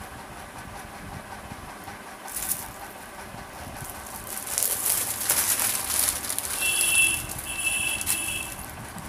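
Rustling as clothes are handled, loudest in the second half, with two short high-pitched beeps near the end.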